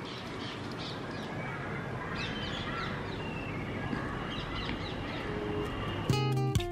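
Birds calling outdoors over a steady background of outdoor noise. An acoustic guitar starts strumming about six seconds in.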